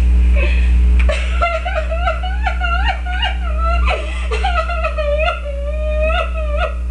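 A person's high voice imitating a woman crying: a run of short, wavering cries that rise and fall in pitch, starting about a second in, over a steady low hum.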